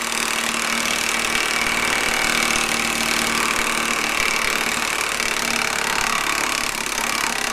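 Ingco 1,350 Nm 20 V cordless impact wrench hammering steadily in its high-torque nut-buster mode, backing a stripped, galled M20 nut off its stud.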